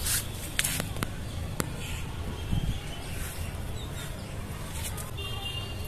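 Open-air background noise with a few sharp clicks and knocks in the first two seconds and a short high bird call near the end.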